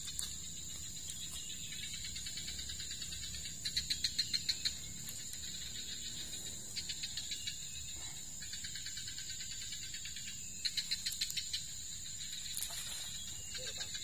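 Forest insects: a steady high-pitched drone, with three bursts of rapid chirping, about eight pulses a second for roughly a second each, at about 4, 7 and 11 seconds in.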